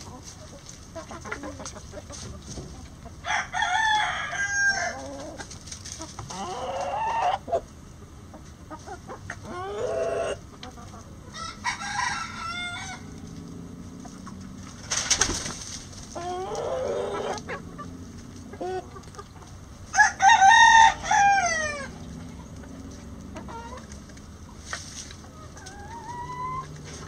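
Roosters crowing again and again, with hens clucking. About seven calls of one to two seconds each, the loudest about twenty seconds in, and a short rising call near the end.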